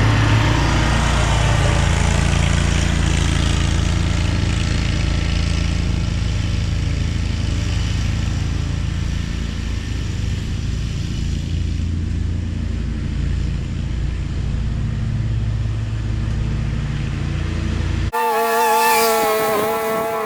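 Zero-turn mower engine running steadily. Near the end it cuts abruptly to a higher-pitched small-engine whine whose pitch wavers slightly.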